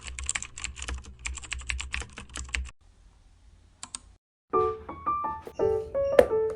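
Rapid keyboard typing, a quick run of clicking keystrokes lasting about two and a half seconds, then a brief pause with a couple of stray clicks. About four and a half seconds in, soft music with piano-like notes begins.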